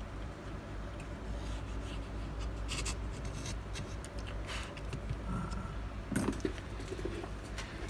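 Metal tweezers scraping and tapping around the edge of an opened iPhone 7 Plus frame: scattered small clicks and scratches, with one louder knock about six seconds in, over a steady low hum.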